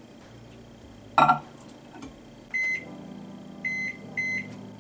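Microwave oven door shut with a knock about a second in, then three short, high beeps from its keypad as the cook time is entered.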